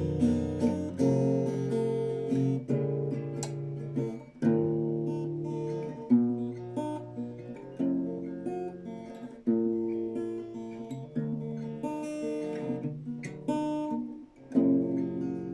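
Acoustic guitar playing an instrumental passage of a song, chords picked and strummed, with the chord changing every second or so.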